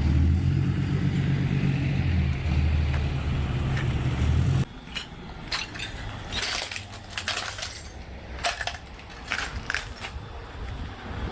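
A car's engine and road rumble, which cuts off abruptly about four and a half seconds in. After that come scattered sharp clinks and crunches.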